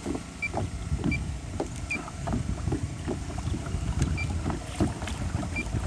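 Water slapping and splashing against a kayak hull as the kayak speeds up under an electric bow-mount trolling motor at full thrust, in light chop. Faint short high pips come every second or so.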